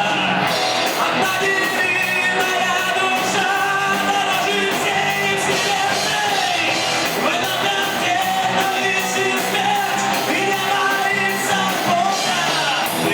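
A rock band playing live: a voice singing, at times close to shouting, over a full band with a steady drum beat.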